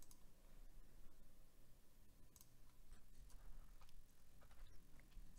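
Near silence: room tone with a few faint computer mouse and keyboard clicks as values are entered into a software dialog.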